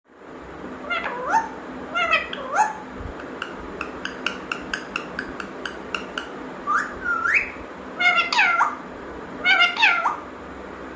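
Pet parrot calling and whistling: drawn-out calls that slide in pitch, a run of short repeated notes at about four a second in the middle, and a rising whistle, ending with two paired calls near the end.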